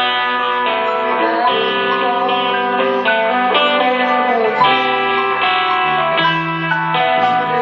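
Live keyboard playing: a run of sustained chords that change every half second to a second, with a bass note moving beneath them.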